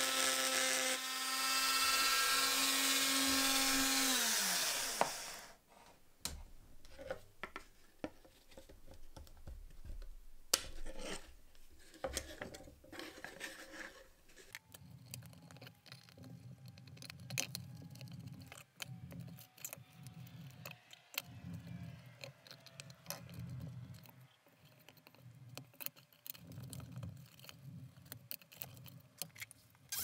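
Handheld rotary tool with a small cutting bit running at high speed, a loud whine, as it grinds out the rivets of a rusty pocket knife, then spinning down with a falling pitch and stopping about five seconds in. After that come scattered clicks and knocks, then an uneven low scraping as a chisel pries the handle scales off.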